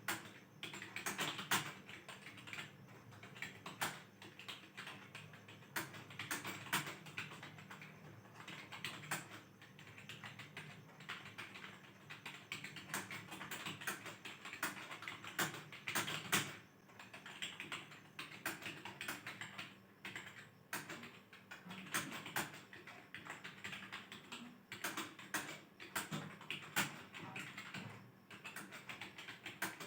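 Continuous typing on a computer keyboard during a timed typing test: a steady stream of key clicks with some louder strokes, at about 54 words per minute.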